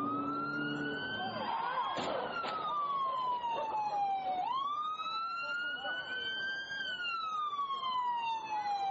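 Police siren wailing, its pitch sweeping quickly up, climbing slowly and then falling slowly, about two full cycles. A couple of sharp knocks about two seconds in, half a second apart.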